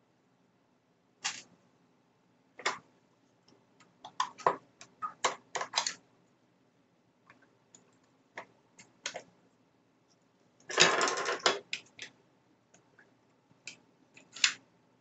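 Hard plastic clicks and knocks from a Bosch cordless drill battery pack's case being pulled apart and handled, with a longer scraping rattle of under a second about two-thirds of the way through.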